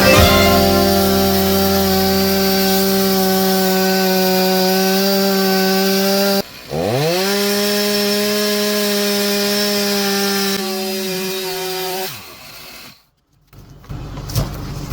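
Gas chainsaw running at high, steady revs while cutting a log. About six seconds in, the engine drops off for a moment and spins back up. Near the end it winds down and stops.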